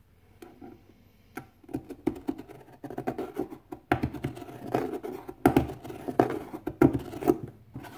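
Hand deburring tool scraping around the edge of a drilled hole in thick plastic, shaving it wider: a series of irregular scraping strokes that start about a second and a half in and grow louder and closer together in the second half.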